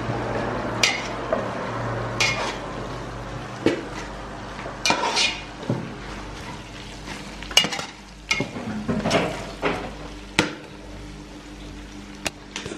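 Dried fish frying in red palm oil in an aluminium pot, sizzling steadily, while a metal spoon stirs it, clinking sharply and irregularly against the pot.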